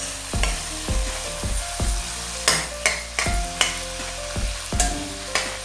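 Metal spatula scraping and knocking against a metal kadai as chicken pieces are stirred, about two strokes a second, over a steady sizzle of the meat frying as its water cooks off.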